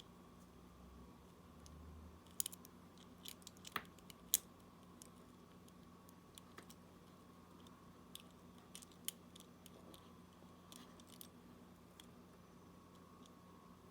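Small, sharp clicks and taps of repair tools on the parts of a Galaxy Gear S3 smartwatch as its internals are worked loose, scattered irregularly over a faint steady hum. The loudest clicks come a few seconds in, with another group about two-thirds through.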